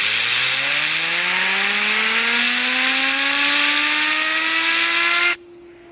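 A fidget spinner being spun up under a loud rushing hiss of air. Its whine rises steeply in pitch as it gains speed, then levels off. The air cuts off suddenly about five seconds in, and the spinner's whine carries on faintly.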